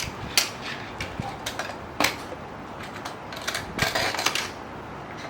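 Small die-cast toy cars clicking and knocking against a plastic toy car carrier as they are handled and loaded, a few sharp knocks amid lighter clatter.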